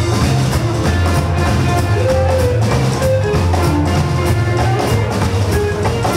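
Live rock and roll band playing an instrumental passage: saxophone lead with held, sliding notes over a walking upright bass, drum kit, piano and electric guitar, keeping a steady beat.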